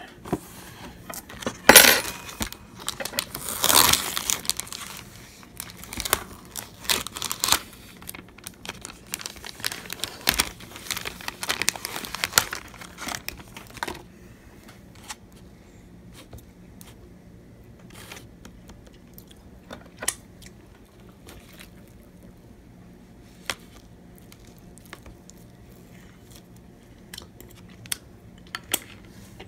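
Plastic film being peeled off a prepared-meal tray and crumpled up: a run of crinkling and tearing with two loud rips in the first few seconds. At about fourteen seconds it stops, and only a few light clicks and taps follow.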